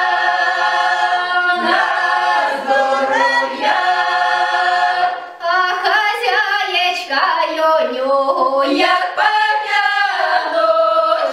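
Mixed folk choir of women's and men's voices singing a Ukrainian Christmas carol in close harmony, holding long chords for the first half, then a short breath about five seconds in and a livelier, moving phrase.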